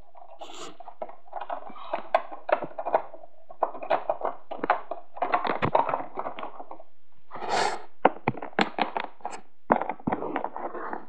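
Small plastic toy figures and a plastic toy airplane being handled, giving many irregular clicks, taps and knocks as they are moved and set down on a wooden floor.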